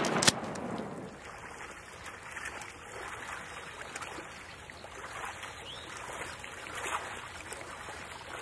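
A sharp report right at the start, then steady sloshing and splashing of water as someone moves through the shallow water among the decoys.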